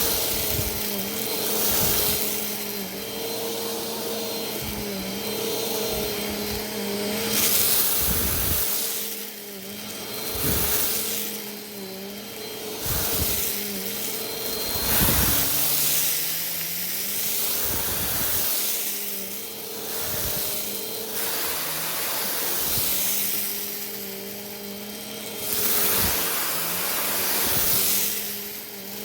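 Vacuum cleaner running on a rug while picking up spilled rice: a steady motor hum under a loud rushing hiss that swells in repeated surges. About halfway through, the motor's pitch dips briefly and comes back up.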